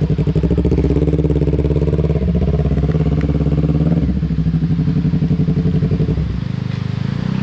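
Motorcycle engines running at low revs close by, with a steady throbbing pulse. Their pitch shifts a few times as the bikes creep forward and stop, and the level drops a little about six seconds in.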